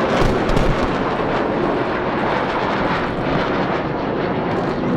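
Military aircraft flying over in formation, a steady rushing engine noise, mixed with booms and crackles from pyrotechnic charges on the ground, most of them in the first second.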